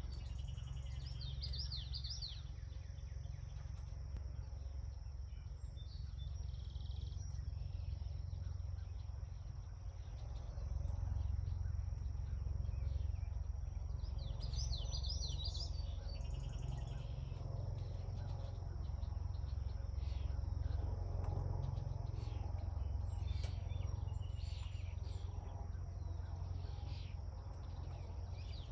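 Outdoor summer ambience: a songbird's short phrases of quick rising chirps now and then, and a steady high insect drone, over a constant low rumble that swells a little partway through.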